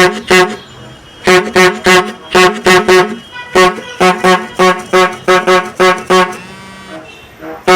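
Brass rubber-bulb squeeze horn honked over and over: about sixteen short, bright honks in quick runs of two and three squeezes. A pause follows, then a couple of weaker honks and a loud one near the end.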